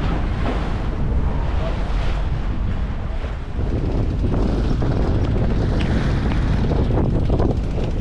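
Strong wind buffeting the microphone aboard a sailboat under sail: a loud, steady rumble with no clear tone, dipping briefly about three and a half seconds in.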